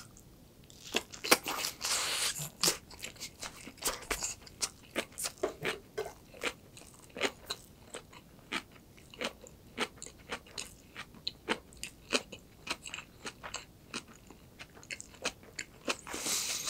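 Close-miked bite into a gim gulttuk, a seaweed-wrapped roll of rice, sesame oil, soy sauce and kimchi, then steady chewing with many quick, crisp crunches. A short breathy rush comes near the end.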